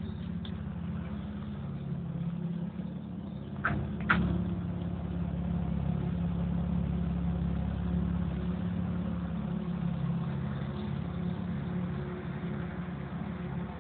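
Alfa Romeo 156 2.5's V6 engine idling, a steady low exhaust note heard at the tailpipe, swelling slightly after about four seconds. Two sharp clicks come just before that.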